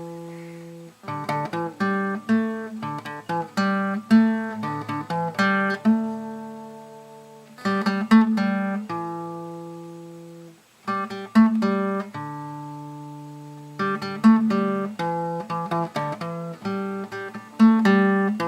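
Background music on plucked acoustic guitar: notes and chords picked in short phrases, each ringing out and fading, with a couple of brief pauses between phrases.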